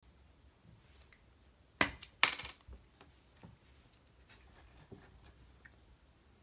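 Two sharp clicks about half a second apart, the second trailing into a brief rattle, followed by a few faint soft taps.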